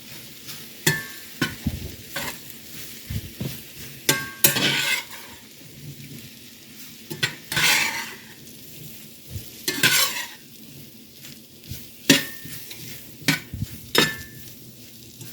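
Cornmeal-coated okra sizzling in bacon grease and oil in a cast iron pan, while a spatula tosses and stirs it, giving irregular clicks and several louder scrapes against the pan.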